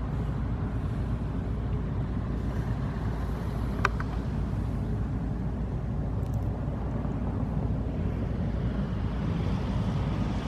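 Steady low rumble of ships' diesel engines, with one brief high-pitched chirp about four seconds in.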